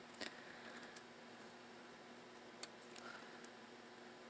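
Near silence: faint room tone with a couple of faint clicks.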